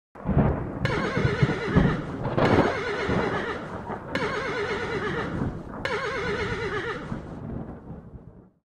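Horse sound effect: horses whinnying several times with a wavering pitch over the thud of hoofbeats, fading out near the end.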